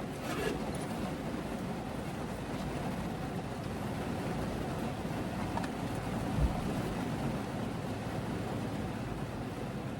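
Steady hiss of heavy rain falling, with one dull thump about six and a half seconds in.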